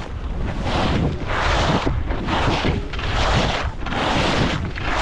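Skis hissing and scraping through fresh snow, swelling and fading in even waves a little more than once a second as the skier turns, with wind rushing over the microphone.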